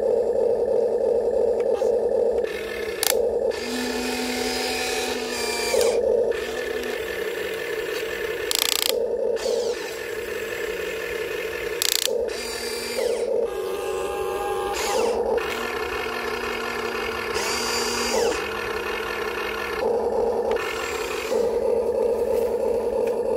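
Radio-controlled excavator's electric motors and gears whining steadily. Extra tones cut in and out every second or two as different functions are worked, with occasional clicks and clunks.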